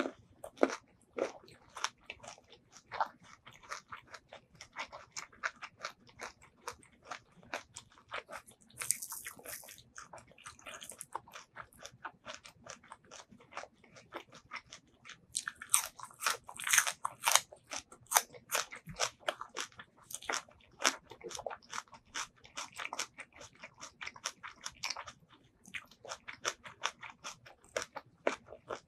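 A person eating crisp raw vegetables, among them a spring onion stalk: crunchy bites and chewing, with the loudest, densest run of crunching a little past halfway.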